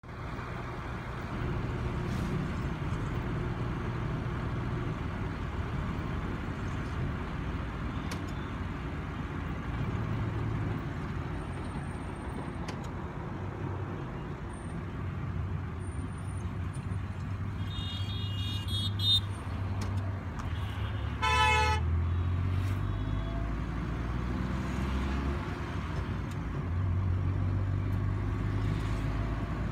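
Steady engine and tyre noise of a moving car heard from inside its cabin, with vehicle horns honking twice in heavy traffic: a short higher-pitched honk past the middle and a louder, brief blast a few seconds later.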